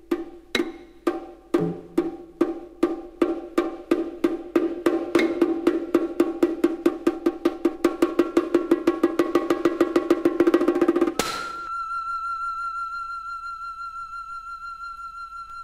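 Contemporary chamber music: a single repeated note is struck again and again, speeding up from about two strokes a second into a rapid tremolo and growing louder. It breaks off suddenly about eleven seconds in, leaving one long high note with a slight vibrato.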